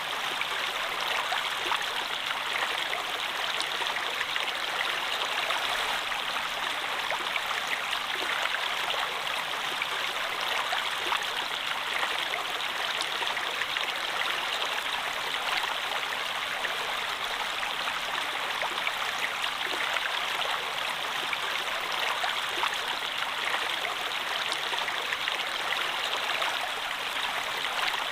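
Water flowing steadily in a stream, an even rushing and babbling without a break.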